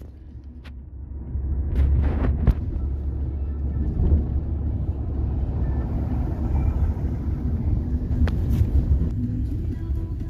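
Road noise inside a moving taxi, a Nissan sedan: a steady low rumble of engine and tyres as it drives through city traffic, with a few sharp clicks about two seconds in.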